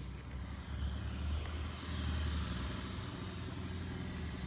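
BMW X7 xDrive50i's twin-turbo V8 idling, a steady low hum heard from inside the cabin, with a steady hiss of air over it.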